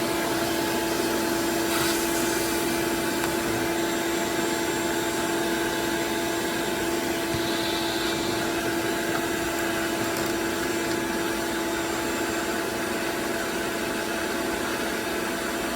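Shop-Vac wet/dry vacuum running steadily with a constant hum, used to vacuum lint out of a clogged dryer vent duct.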